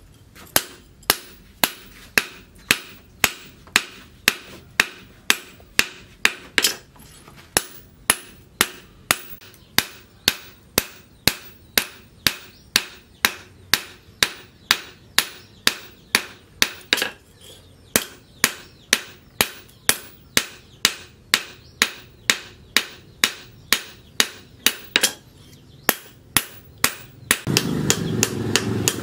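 Blacksmith's hand hammer striking a red-hot axe head on a steel post anvil, with steady sharp blows about two a second. Near the end, a loud steady noise comes in under the blows.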